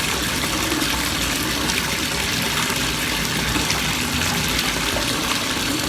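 Bathtub tap running steadily, water gushing into a filling tub.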